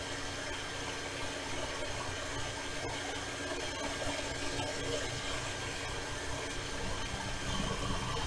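Steady background hiss with a faint constant hum.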